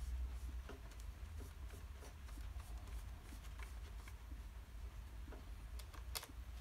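Faint scattered taps and scratches of a paintbrush working on paper, with a sharper click near the end as the brush is dipped into a plastic paint palette, over a steady low hum.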